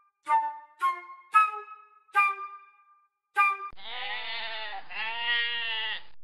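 A few short, separate musical notes that fade quickly, then a domestic sheep bleating twice in quick succession, starting about three and a half seconds in.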